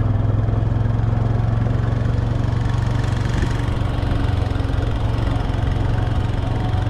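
Vehicle engine running steadily with an unbroken low hum, even in level throughout.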